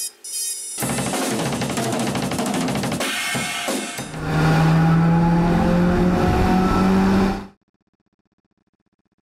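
Intro music: a drum kit with snare and cymbals, joined about halfway by a held low note and rising tones, cutting off abruptly, then near silence.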